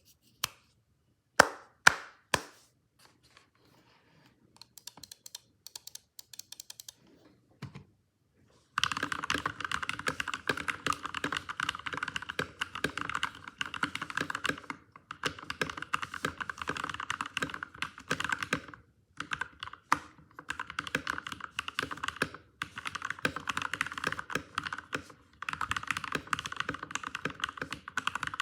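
Modded RK61 mechanical keyboard with lubed Gateron Milky Yellow linear switches being typed on. A few sharp single clicks come first, then light scattered taps. From about nine seconds in comes fast, continuous typing, broken by a few short pauses.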